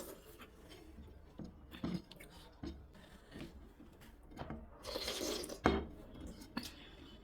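Eating sounds at a plate of rice and dal: scattered light clicks and clinks of dishware, a rustling, scraping stretch about five seconds in, and a sharper knock just after it.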